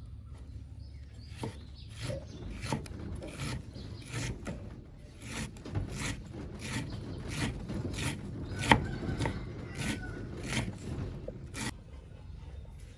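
Kitchen knife chopping pickled mustard greens on a round wooden chopping board: a steady series of sharp chops, about two a second, starting about a second and a half in and stopping near the end.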